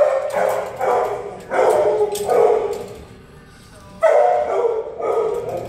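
Dogs barking in a shelter's chain-link kennels, in three stretches with a short lull about three seconds in.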